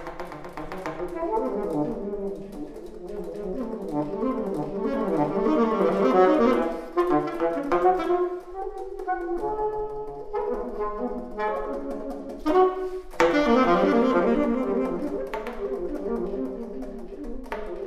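Solo alto saxophone playing fast, dense runs of notes with a few sharp accented attacks.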